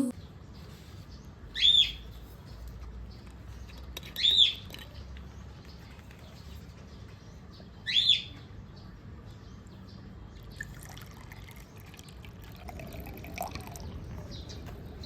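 A bird chirping three times: short, high calls that rise and fall, a few seconds apart, over faint background noise.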